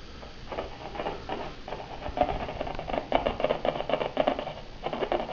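Irregular crackle and scratching from an audio amplifier's speaker, picking up a laser pointer's beam through a solar cell wired to its input, like a needle on a record. It comes in rough bursts that grow denser partway through.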